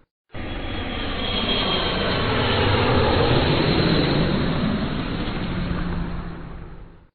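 Airplane engine passing over: the sound rises out of silence, peaks about three seconds in, then fades away again just before the end.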